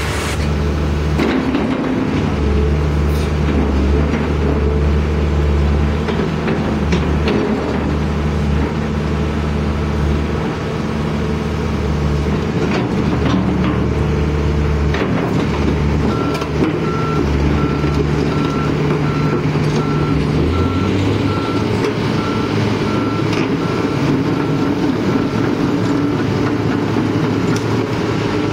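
Komatsu PC290LC-8 crawler excavator's diesel engine running under changing hydraulic load as the boom and bucket move, its low note rising and falling in steps, with a few sharp clunks. About halfway through, a steady beeping alarm starts and keeps going, the machine's travel alarm as it moves on its tracks.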